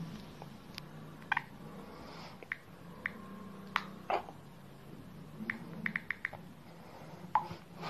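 Budgerigar making short, soft chirps and clicks at scattered moments, with a quick run of four clicks about six seconds in, over a low steady hum.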